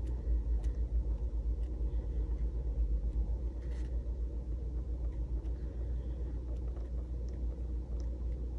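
Gel pen writing on a planner page: faint scratches and light ticks over a low, unsteady rumble.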